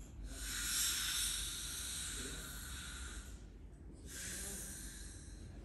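Dental air-water syringe hissing in two long bursts as it sprays the teeth, the second starting about four seconds in.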